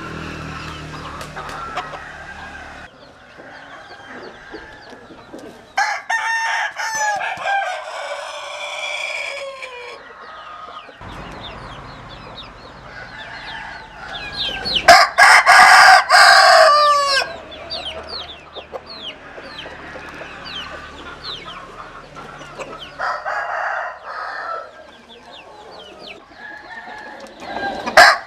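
Roosters crowing: several long crows one after another, the loudest about halfway through, with the background noise changing abruptly between them.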